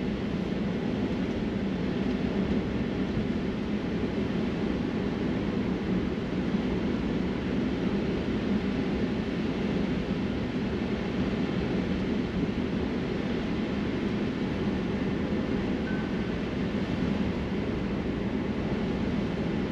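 Steady road and tyre noise inside a Tesla's cabin while driving, a low rumble with no engine note from the electric drivetrain.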